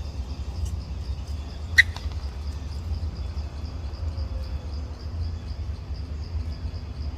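Outdoor ambience of a steady low rumble and a faint high buzz pulsing about four times a second, with one short, sharp animal squeak about two seconds in.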